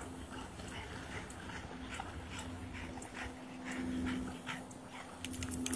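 A dog panting in quick, even breaths, about two or three a second, over a steady low hum.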